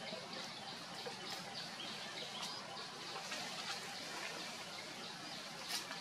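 Steady outdoor background noise with faint, scattered high chirps, and a brief soft tick near the end.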